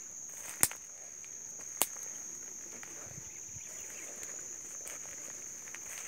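A steady, high, thin insect chirring runs throughout, over a faint outdoor hiss. Two sharp clicks come about half a second and just under two seconds in.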